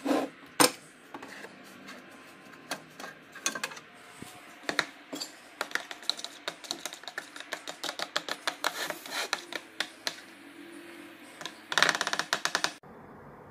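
A spoon stirring sauce in a plastic bowl, clicking and scraping against the sides in quick, irregular taps, with a fast flurry of strokes near the end. There is a sharp knock about half a second in.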